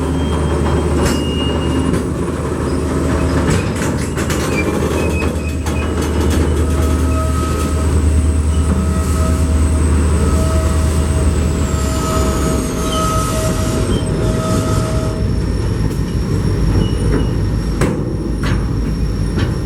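A New England Central Railroad train rolling past, its diesel locomotive running under a steady drone of wheels on rail. A thin wheel squeal sounds for several seconds through the middle.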